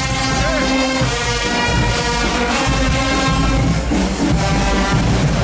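Loud music with brass instruments playing sustained chords.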